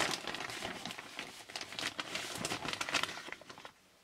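Plastic bag of grub den substrate crinkling and rustling as a scoop is dug into it, with irregular crackles that stop shortly before the end.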